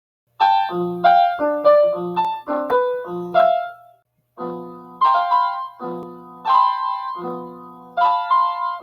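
Piano music: a bouncy tune of struck chords and melody notes, starting about half a second in, with a brief break a little before halfway.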